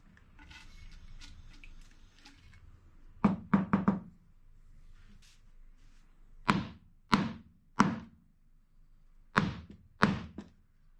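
Steel tube from a dismantled car shock absorber knocked end-down on a workbench to shake out the oil and grime inside. There is a quick run of four knocks, then two groups of three, after a short hiss of aerosol spray at the start.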